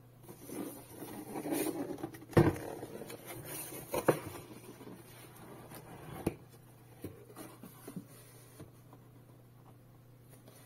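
Cardboard product box being handled and opened by hand: sliding and scraping, then a sharp knock about two and a half seconds in (the loudest sound), more knocks about four and six seconds in, and light taps after.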